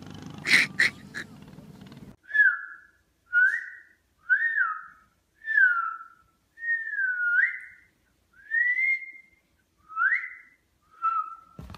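A person whistling a series of short notes, about one a second, some sliding up, some down, one dipping and rising again. Before the whistling, a couple of sharp clicks over a noisy background.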